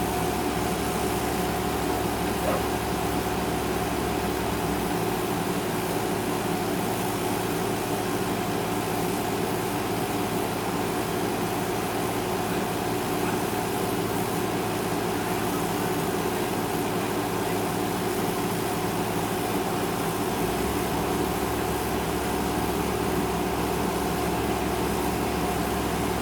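Diesel engine of an excavator running steadily, a constant mechanical hum with a few fixed tones.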